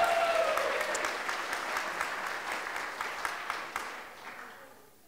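Wedding guests applauding, with a cheering voice over the clapping at the very start. The clapping is loudest at first and fades out over about four seconds.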